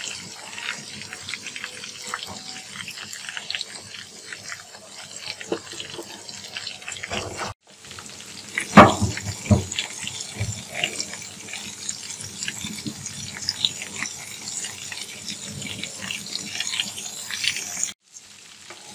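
Chicken leg pieces deep-frying in hot oil in a metal pot: a steady crackling sizzle, with a ladle stirring through now and then. A few loud knocks about nine seconds in, and the sound cuts out briefly twice.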